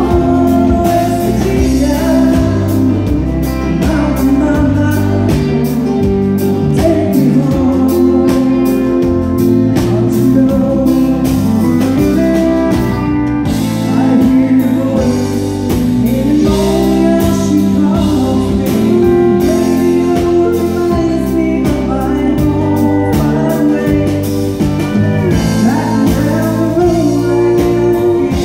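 A woman singing live into a handheld microphone over instrumental accompaniment with a moving bass line, the music continuous throughout.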